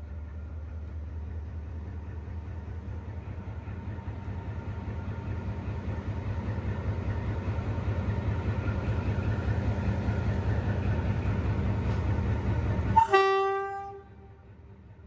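D19E diesel-electric locomotive's engine running with a low, throbbing rumble that grows steadily louder, then one short horn blast about 13 seconds in, lasting about a second.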